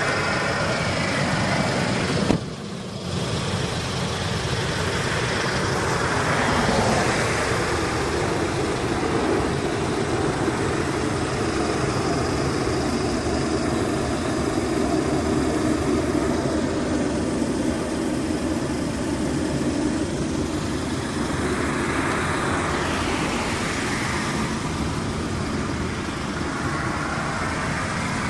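Road traffic noise: a steady rush of car engine and tyre noise, swelling as vehicles pass about 7 and 22 seconds in, with a brief drop about two and a half seconds in.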